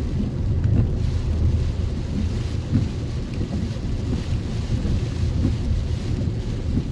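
Steady low rumble of a truck driving in the rain, heard from inside the cab: road and engine noise with rain on the vehicle.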